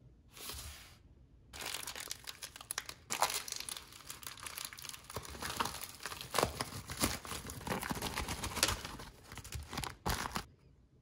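Plastic mailer bag being torn open and handled, a dense run of crinkling and tearing with many sharp crackles after a short first burst, stopping shortly before the end.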